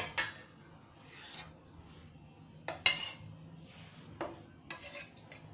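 Kitchen utensils and containers being handled: a sharp clink right at the start, then a few short scrapes and clicks spaced a second or two apart.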